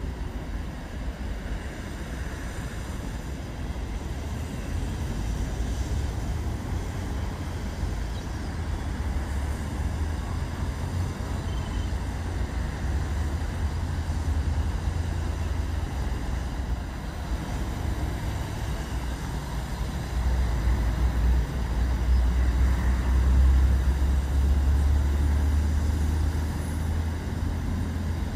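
Passenger launch's engine droning as a low, steady rumble, growing louder over the last several seconds as the boat approaches.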